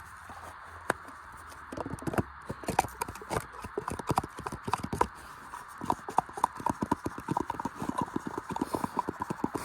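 Washing machine being run to destruction: irregular knocks and clatters over a steady whir, turning into a fast, continuous train of banging from about six seconds in as the machine speeds up.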